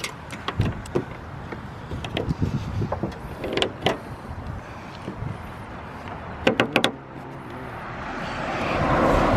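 Handheld heat gun blowing hot air onto the spoiler's glue, with scattered clicks and knocks from tools and hands on the car body. A quick cluster of clicks comes about two thirds of the way in, and the gun's hiss swells over the last two seconds.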